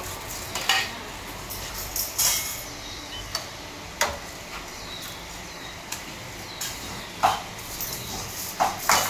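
Steel ladle, metal cup and bowls clinking and knocking against stainless-steel pots and trays as braised sauce is ladled out: separate sharp clinks a second or two apart, the loudest about seven seconds in and two close together near the end, over steady background noise.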